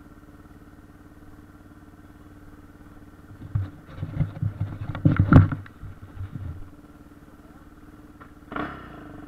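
Yamaha TT600R single-cylinder four-stroke dirt-bike engine idling steadily, with a few seconds of loud, irregular thumps and noise starting about three and a half seconds in.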